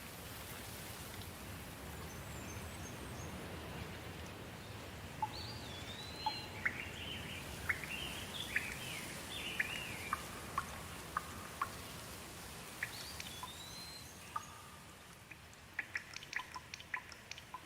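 Steady rain with a songbird calling: chirps and short whistled phrases through the middle, then a quick run of sharp drips near the end.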